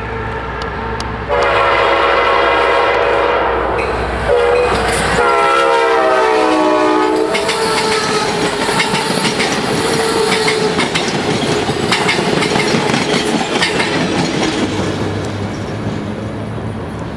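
Passenger train passing close by at speed. The diesel locomotive's horn sounds a long blast, a short toot, then a long blast that falls in pitch as the locomotive goes by. The passenger cars follow in a loud rush of wheels clicking over the rails, fading near the end.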